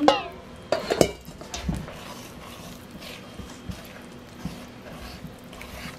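Wooden spatula stirring batter in a stainless steel mixing bowl, with a few scattered knocks and taps of the spatula and bowls, the loudest about a second in.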